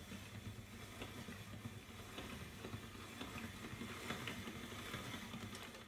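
Hand-cranked pasta machine turning through its tagliatelle cutter: faint, irregular light clicking and rattling from the crank and rollers as the sheet of fresh egg pasta is cut into ribbons.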